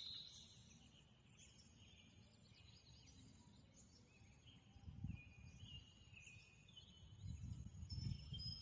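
Quiet outdoor ambience with birds chirping in short high notes, and low rumbling on the microphone about five seconds in and again near the end.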